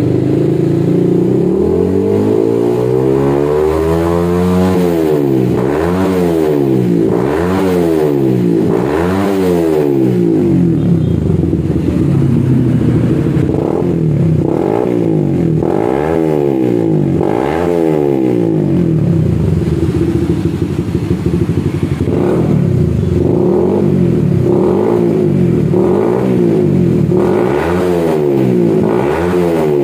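Suzuki Satria FU 150 fuel-injected single-cylinder engine, breathing through an SKR full-system racing exhaust, revved hard in neutral. It makes one long climb in the first few seconds, then a string of quick throttle blips, each rising and falling in pitch, roughly every second or two, with a short settle near idle about two-thirds of the way through.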